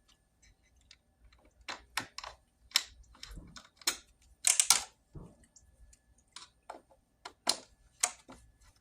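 Irregular clicks and knocks of storm door latch hardware and a loose striker plate being handled and tried against the door frame, with a louder clatter about halfway through.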